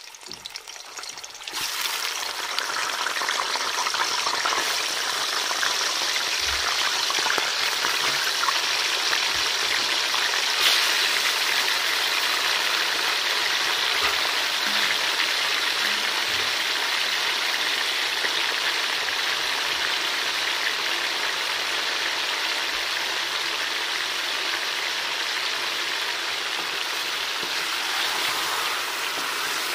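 Raw chicken pieces frying in hot ghee in an aluminium karahi: a loud, steady sizzle that jumps up suddenly about a second and a half in as the chicken goes into the fat, while the pieces are turned with a wooden spoon.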